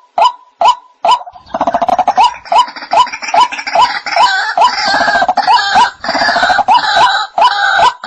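White-breasted waterhen calling: a steady series of short, single notes, about two a second. About a second and a half in, a denser, rasping chorus of overlapping calls joins the notes.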